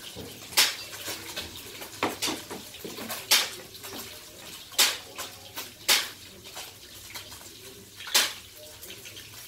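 Steady sizzle of small goby fish frying in hot oil, broken by about seven sharp clicks spread irregularly across the stretch.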